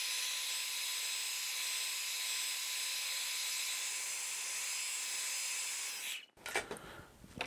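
Handheld hairdryer running steadily, a high airy hiss with a faint whine, blowing hot air onto the camera's front panel to soften it for prying off. It cuts off about six seconds in, followed by a few light handling clicks.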